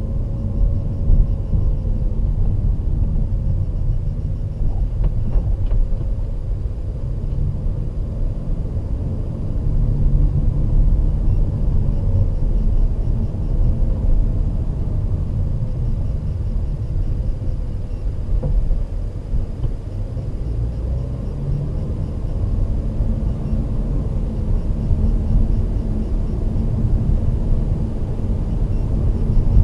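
Mercedes-Benz W212 E-Class driving slowly, heard from inside the cabin: a steady low rumble of engine and tyre noise, with a faint tone that rises and falls with the car's speed.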